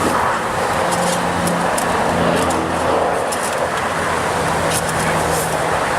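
Jeep Wrangler JK engine idling steadily, with a few light clicks near the end.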